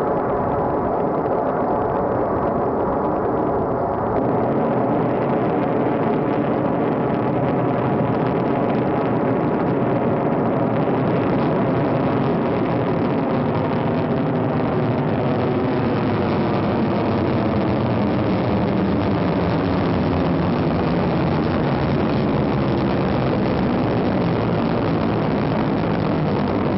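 Soyuz rocket engines during liftoff and ascent: a steady, loud rumble that gets louder and brighter about four seconds in.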